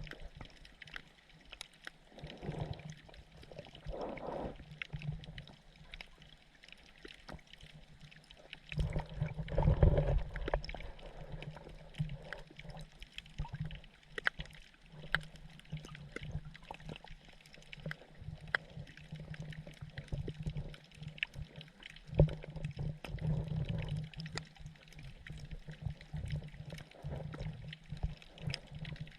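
Underwater sound around sergeant major damselfish: a steady crackle of small clicks over a low hum, with louder low rumbling sounds, the strongest about a third of the way in.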